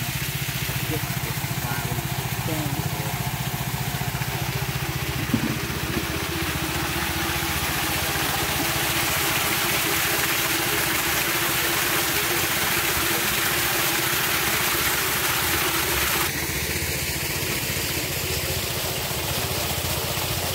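Water from a hose gushing and splashing into a large concrete water jar over a steady motor drone. The splashing drops off suddenly near the end while the drone keeps going.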